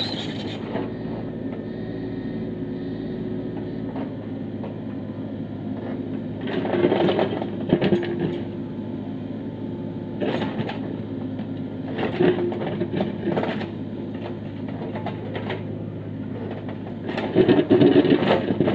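Kubota U30 mini excavator's diesel engine running steadily under hydraulic load, with repeated bursts of scraping and knocking as its attachment works into rock, the loudest near the end.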